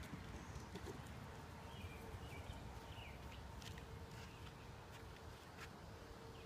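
Faint backyard ambience: small birds chirping now and then, over a faint steady hum and a few light taps.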